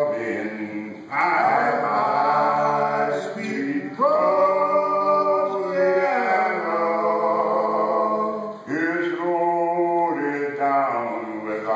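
Group of men singing a menhaden fishermen's work song a cappella, several voices in harmony. It is sung in long held phrases, three of them, the next one starting about a second in, at about four seconds and near nine seconds.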